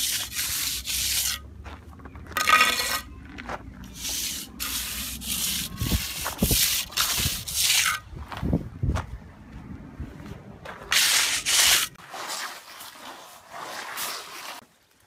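Rough scraping on gravel and sand, a run of short strokes each under a second with gaps between. A low rumble under the strokes drops out about twelve seconds in.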